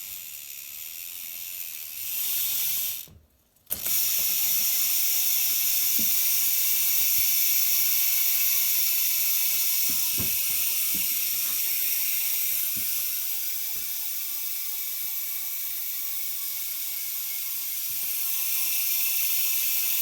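Spank Hex Drive J-type rear hub freewheeling on a spinning mountain bike wheel, its freehub ratcheting so fast that the clicks blend into a loud, high buzz. The sound cuts out briefly about three seconds in, then carries on steadily.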